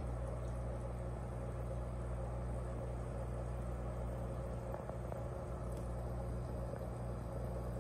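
Steady low mechanical hum with no other clear events.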